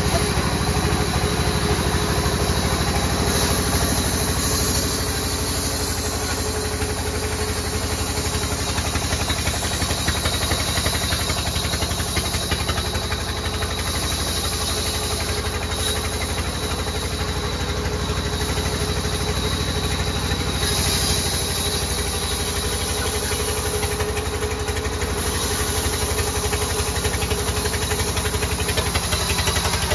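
Log band sawmill running steadily, a continuous low drone from its drive and blade.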